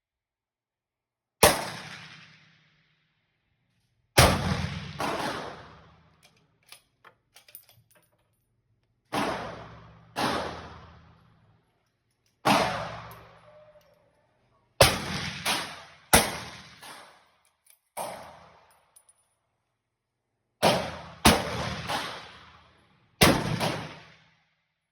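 Rifle gunfire: a string of loud, sharp shots, several following each other about half a second apart, each dying away in a long echo. A few faint clicks fall between shots.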